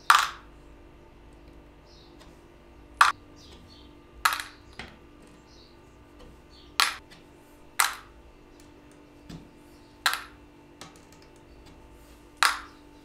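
Brass reeds pulled one by one from a reed organ's reed cells with a hand tool, giving sharp metallic clicks with a short ring, about seven of them a second or two apart.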